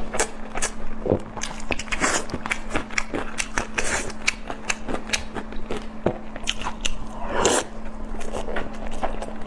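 A person biting and chewing crunchy food close to the microphone: a dense, irregular run of crunches and crackles, with a steady low hum underneath.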